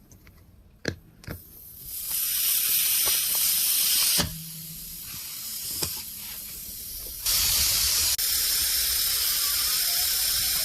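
Two sharp clicks about a second in, then air hissing out of a nail puncture in a car tire. The hiss starts about two seconds in, drops quieter for about three seconds, and comes back stronger near the end.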